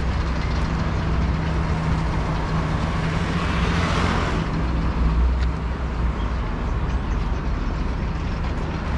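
Steady low engine hum of idling road vehicles, with a rushing sound that swells and fades about four seconds in as something passes.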